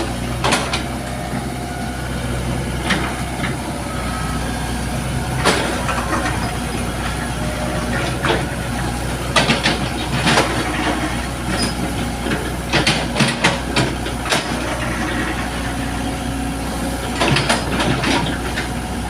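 Excavator's diesel engine running steadily, with short sharp clanks now and then.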